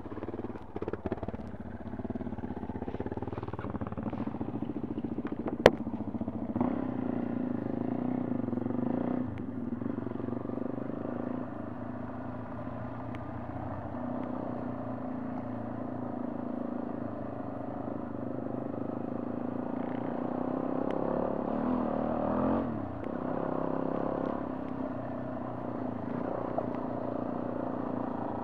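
Motorcycle engine running steadily while riding a dirt track, a little louder around twenty seconds in. One sharp click about six seconds in.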